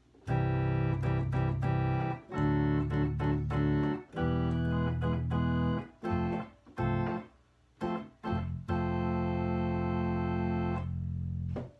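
Yamaha BK20AS electronic organ played with every voice tab down, a full registration. It plays a series of sustained chords with short breaks, some short stabbed chords in the middle, and a chord held for about three seconds near the end.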